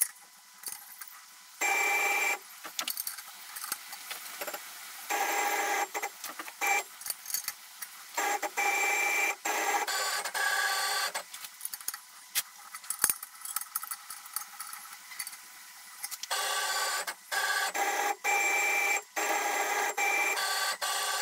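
CNC milling machine's axis drives whining in short runs that start and stop abruptly, with clicks in between, as the table is jogged to sweep a dial indicator across a cylinder head and square it for machining.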